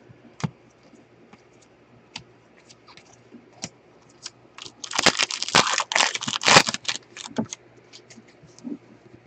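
Sharp light clicks of trading cards being flipped through. About five seconds in, a trading-card pack wrapper is torn open and crinkled for around two and a half seconds, then a few more card clicks follow as the new cards are handled.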